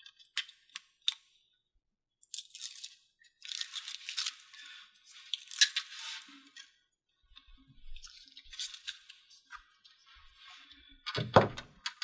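Backing strip being peeled off the double-sided tape under a plastic bathtub control keypad: a few light clicks, then several seconds of irregular crackling and tearing.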